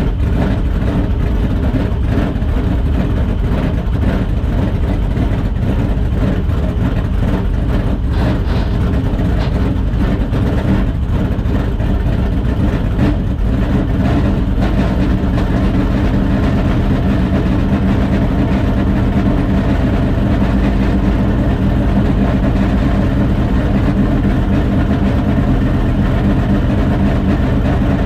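Dirt late model race car's V8 engine running loud and steady, settling into an even idle about halfway through.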